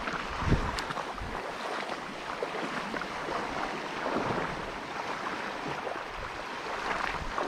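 Fast, high river current rushing steadily, with a few brief low thumps of wind on the microphone.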